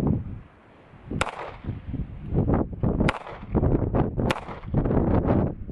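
A Springfield Armory 911 pistol in .380 ACP fires three single shots, each a sharp crack, about a second in, near three seconds and just past four seconds.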